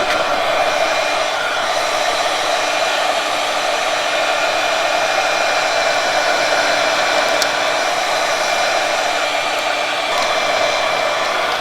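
Electric heat gun running steadily, a continuous rush of blown air, shrinking a sublimation shrink-wrap sleeve onto a tumbler.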